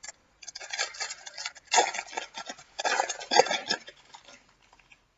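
Foil trading-card pack wrapper being torn open and crumpled in the hands: a dense crackling crinkle, loudest about two and three and a half seconds in, dying away near the end.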